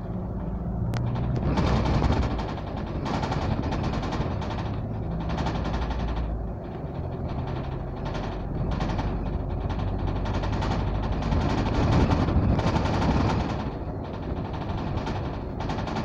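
Double-decker bus in motion, heard from the upper deck: a low engine drone under a dense, rapid rattling from the bus body and windows.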